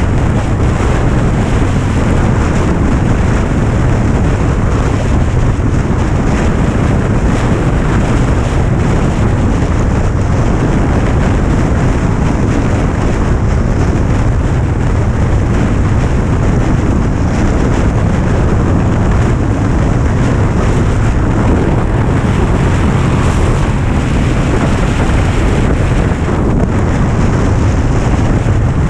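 Wind noise buffeting the microphone over a motorcycle engine running steadily at cruising speed: a loud, even rush that does not let up.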